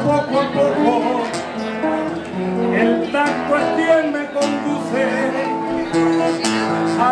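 Acoustic guitar playing a melodic accompaniment, with plucked notes and strummed chords over sustained bass notes.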